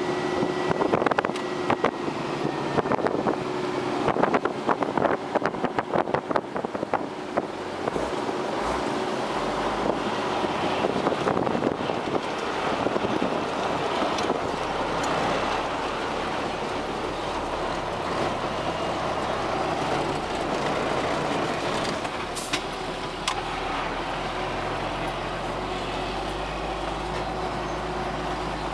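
Tractor engine and road noise heard from inside the cab while driving, with many rattles and knocks in the first several seconds and then a steadier drone. Two sharper knocks come a few seconds before the end.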